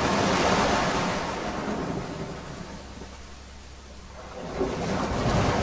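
Sea waves rushing and washing in two surges, swelling at the start, easing off, then swelling again near the end.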